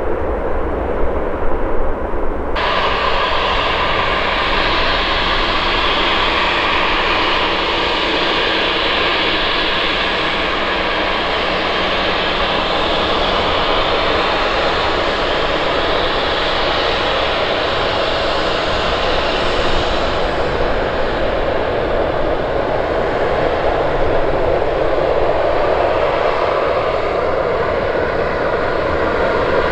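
Embraer E190 jet airliner's twin GE CF34-10E turbofans heard at close range: a steady, loud jet noise with a faint whine of fan tones, the highest hiss easing a little after about twenty seconds.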